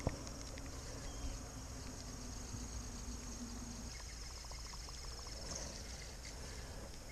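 Steady high chirring of insects, with a sharp knock right at the start as a spinning rod is cast. A short run of quick ticks comes about four seconds in.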